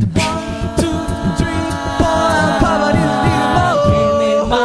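A cappella vocal group singing held chords with no lyrics, the harmony shifting a few times, over steady beatboxed percussion.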